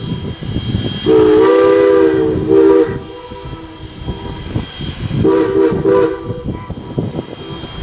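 Steam locomotive's chime whistle blowing several notes at once: a long blast about a second in, a short one right after it, then another blast of about a second near the end, over the rumble of the moving train.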